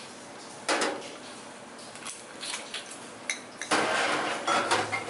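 Stainless steel jigger and shaker tin clinking as a measure of brandy is tipped into the tin: a short loud clatter just under a second in, a few light taps, and a longer clatter of about a second near the end.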